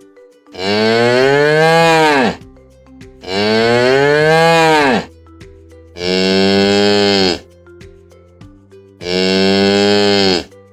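Cow mooing four times, long calls that rise and fall in pitch; the first two are longer than the last two. Faint background music between the moos.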